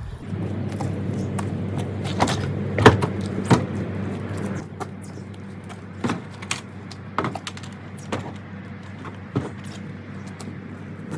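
Vehicle engine idling steadily, with scattered knocks and rattles over it, the loudest about three seconds in.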